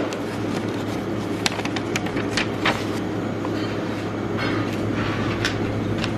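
Paper takeout menu being handled and unfolded, giving short crinkles and rustles, over a steady low mechanical hum.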